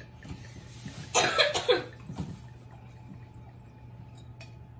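A person coughing: one short burst of several quick coughs about a second in, over a steady low hum.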